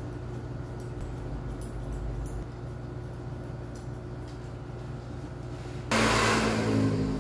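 Faint snips of barber scissors over a low steady hum, then a handheld hair dryer switched on about six seconds in, blowing loudly with a steady motor hum under the rush of air.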